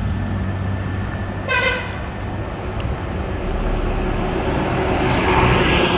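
Street traffic with an auto-rickshaw's engine running as it pulls up, and a short horn toot about a second and a half in.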